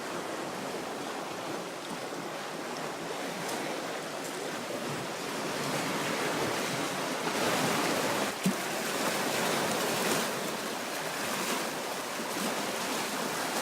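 Black Sea waves washing onto the shore, a steady surf that swells louder about halfway through, with one short knock about eight seconds in.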